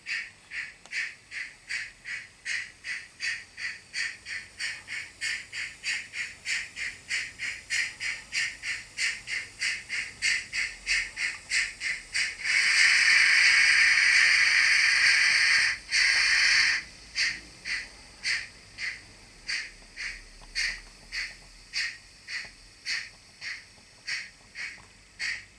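Model steam locomotive chuffing in an even rhythm of about two to three puffs a second, quickening, then a steady steam hiss of about four seconds, after which the chuffing resumes a little slower. The puffs are thin and high, with almost no low end, as from a small on-board sound unit.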